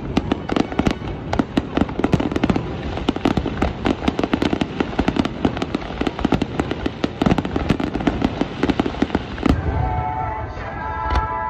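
A dense barrage of fireworks shells bursting overhead, a rapid, irregular stream of sharp bangs and crackles. About ten seconds in, the bangs thin out and background music with sustained tones comes in.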